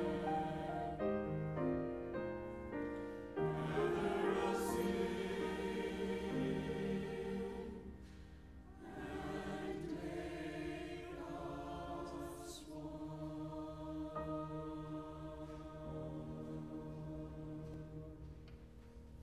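Church choir singing an anthem in held chords, with piano accompaniment, dying away toward its close near the end.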